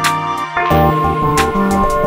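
Instrumental background music: sustained notes with a few sharp percussive hits.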